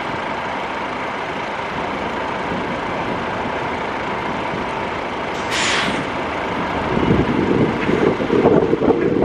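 Jet engines of an Airbus A330-243F freighter, Rolls-Royce Trent 700 turbofans, at climb power after takeoff: a steady rushing noise with a faint held tone. A brief hiss comes a little over halfway, and a louder, uneven low rumble builds over the last two seconds.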